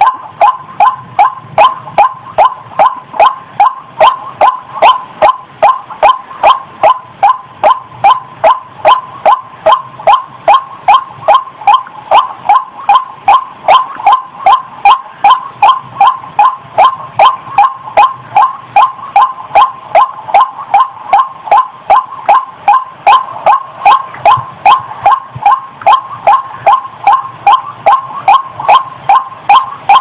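White-breasted waterhen giving its 'ruak-ruak' call, played as a bird-trapping lure: short croaking notes repeated steadily, about two to three a second, each with a slight bend in pitch.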